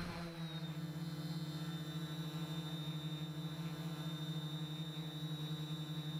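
Quadcopter's brushless electric motors and propellers humming steadily with a fast pulsing beat and a high whine as it lifts off and climbs.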